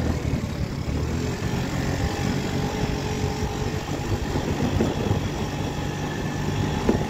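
RKS Azure 50 Pro 50cc scooter engine running steadily at low speed on a rough dirt road, with wind and road noise around it.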